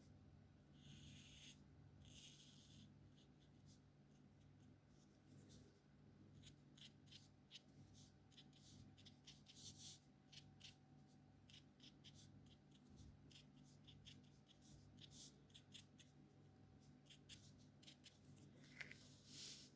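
Alcohol marker tips stroking on paper: faint, quick scratchy strokes, many in a row, coming thicker in the middle of the stretch.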